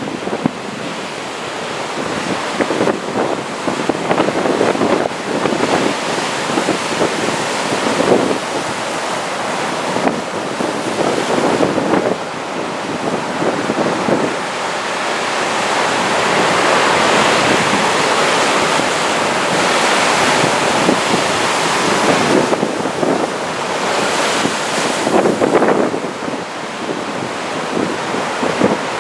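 Heavy typhoon surf crashing and rushing ashore, with wind gusting against the microphone.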